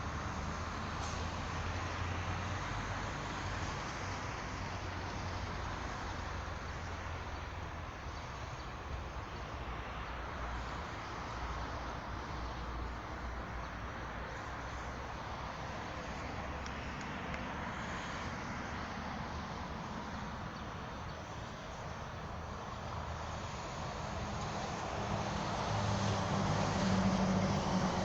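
Steady outdoor background noise of distant road traffic, a constant rush with a low rumble that grows louder near the end.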